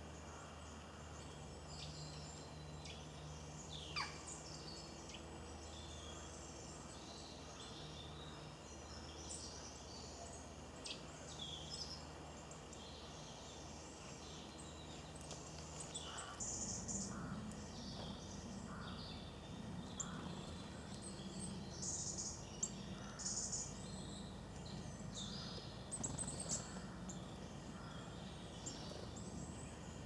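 Small wild birds chirping and calling in the background: many short high calls, busier in the second half, with one falling whistle about four seconds in. A low outdoor rumble runs underneath.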